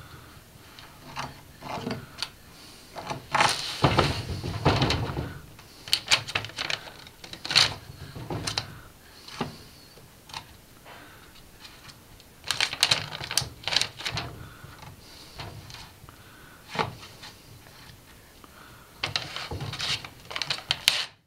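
Wooden-framed glass sliding door rattling and knocking in its frame as a baby grips, pulls and mouths it. The clicks and taps come in irregular clusters with quiet gaps between.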